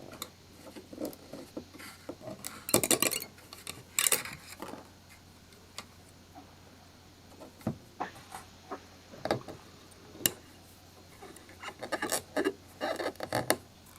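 3D-printed plastic support material being picked and snapped away from under a printed handle: irregular clusters of light clicks and crackles with short pauses between.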